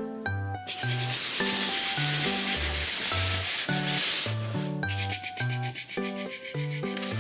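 Background music with a plucked melody over stepping bass notes, and a steady scratchy rubbing hiss through most of it.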